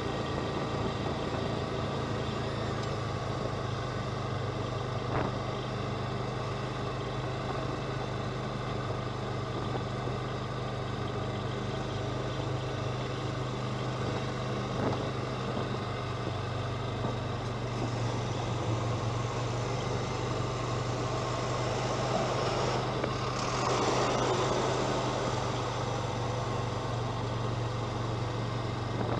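Polaris Ranger 4x4 utility vehicle's engine running with a steady low drone while driving. About three-quarters of the way through, a brief louder rush of noise swells over it.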